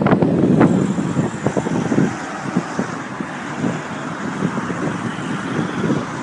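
Road traffic: a Mercedes-Benz tractor-trailer truck driving round a roundabout and a car passing close by, loudest in the first two seconds, then a steadier rumble of the truck pulling away.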